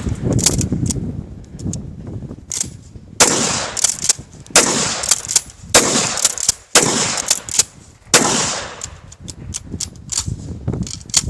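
A string of gunshots fired in quick succession, the loudest roughly one to one and a half seconds apart, each followed by a short rolling echo.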